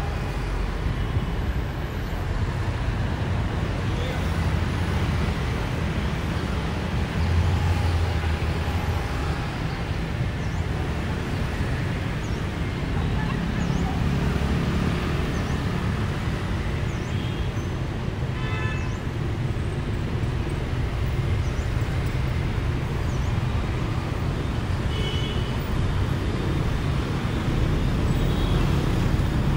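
City traffic heard from the open top deck of a moving double-decker bus: a steady low rumble of the bus and the motorbikes and cars around it. A brief higher tone, like a horn, sounds about two-thirds of the way through.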